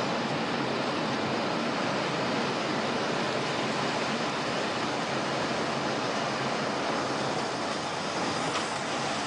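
Steady, even rushing noise of storm wind, with no separate gusts, hits or tones standing out.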